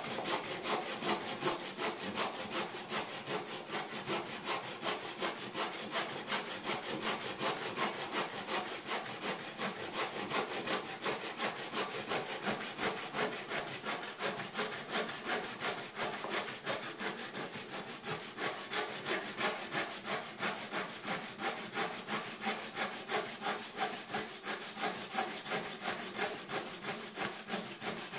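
Little Buck 15-inch buck saw with a Swedish steel blade cutting through a maple log about 5.5 inches thick, in steady back-and-forth strokes with an even rhythm.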